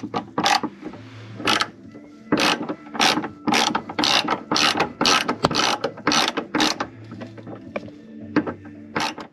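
A ratchet clicking in quick repeated strokes, about two a second, over a steady low hum.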